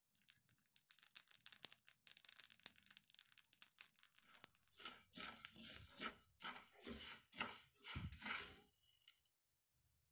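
Raw rice grains dry-roasting in a non-stick pan, scraped and stirred with a wooden spatula: a dense rustle of fine clicks at first, then heavier stirring strokes about three a second from about halfway, stopping suddenly about a second before the end.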